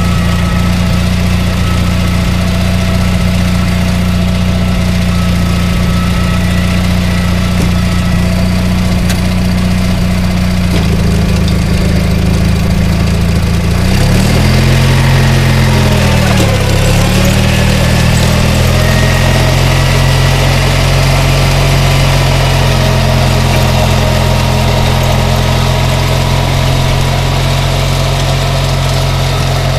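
Cub Cadet 582 Special garden tractor engine running steadily while driving its rear-mounted Model #1 tiller. About halfway through, the engine's pitch dips and recovers, then it settles back to a steady run.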